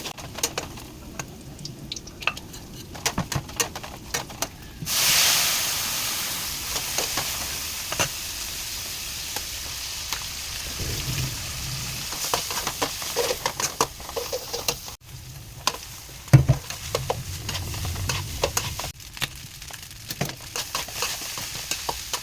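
Fried rice with duck egg frying in a hot pan: sizzling with stirring clicks and scrapes. About five seconds in the sizzle suddenly jumps loud, then settles to a steady sizzle.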